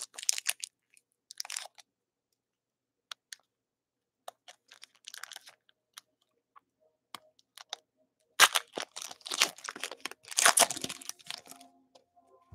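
Crinkling of a foil trading-card pack wrapper and the flick and slide of cards as the pack is opened and the cards are handled, in scattered small clicks and crackles; the loudest crinkling comes in a run about eight to eleven seconds in.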